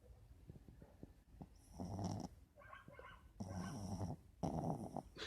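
Snoring: a loud snore about two seconds in, then two more close together near the end.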